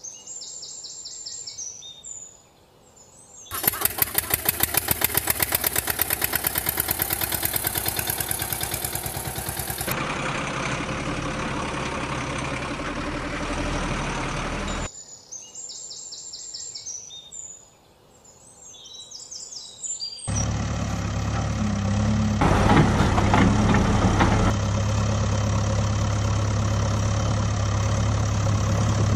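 Birds chirping, then an engine starting up with a rapid even pulse and running for several seconds before it cuts off suddenly. Birds chirp again, and from about twenty seconds in a heavy vehicle engine idles steadily with a low hum.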